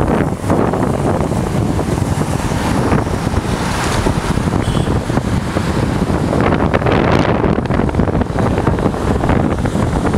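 Wind buffeting the microphone of a moving motorcycle at road speed, a loud, rough, steady rush, with the motorcycle's engine and road noise underneath.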